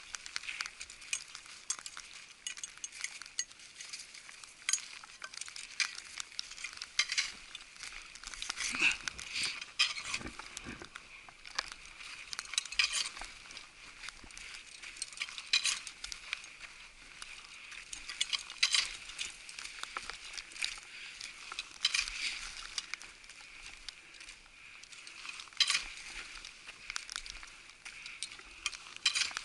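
Snow crunching and scraping as a climber moves over a snow slope: a continuous gritty crackle with louder crunches every few seconds.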